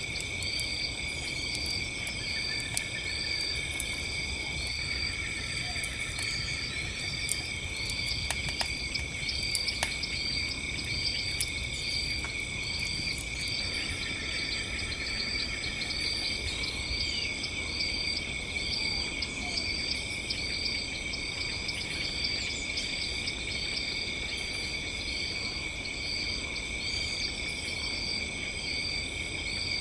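Crickets and other night insects trilling steadily, one chirping in an even rhythm, over a crackling campfire. The campfire gives scattered sharp pops, mostly in the first half.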